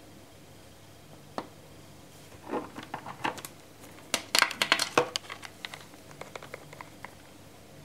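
Light clicks and taps of a copper coin and a zinc washer being picked up, flipped over and set back down on wet newspaper. There is a single click early, then a run of quick clicks that is loudest about four to five seconds in, and a few faint ticks after.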